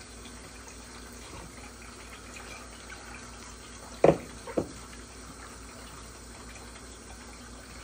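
Hands kneading a ball of soft dough in a bowl. About four seconds in come two sharp thuds, half a second apart, as the dough is pressed and turned against the bowl, over a steady faint hiss.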